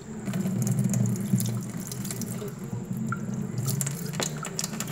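Water running from a tap, a steady rush, with a few sharp clicks and knocks near the end.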